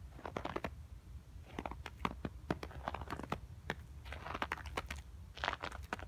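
Footsteps crunching on patchy snow and gritty broken concrete, about one step a second, with scattered small clicks and crackles in between.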